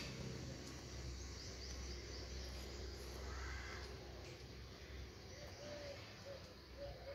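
Faint background ambience: a steady low hum with a few distant bird calls, including a run of short repeated notes near the end.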